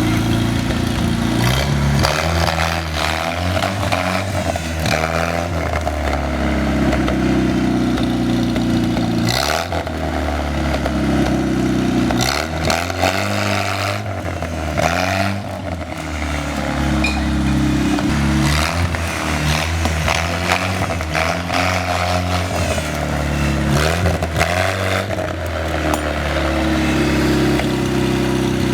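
Freshly rebuilt four-cylinder side-valve engine of a GAZ-69 pulling the vehicle, its revs rising and falling again and again, with scattered knocks.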